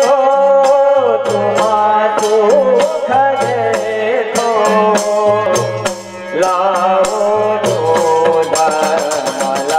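Indian devotional background music: a wavering melody over regular hand percussion and a low bass line, with a brief lull about six seconds in.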